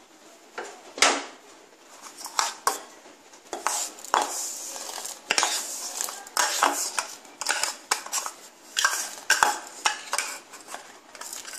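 A steel spoon tapping and scraping rice out of a plastic bowl into a steel pot of milk, with irregular clinks and knocks of metal on bowl and pot rim starting about a second in.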